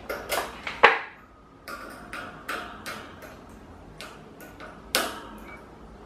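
Irregular clicks and taps of a screwdriver and plastic retaining clips against a pedestal fan's metal wire grille as a grille clip is pried loose. The sharpest click comes a little under a second in.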